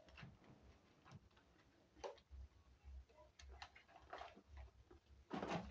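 Near silence, with a few faint scattered clicks and knocks from grocery packets being handled and set down.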